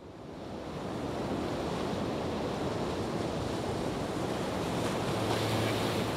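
Soundtrack of a steady rushing noise, like surf or wind, fading in from silence over the first second. A low, held musical tone enters near the end.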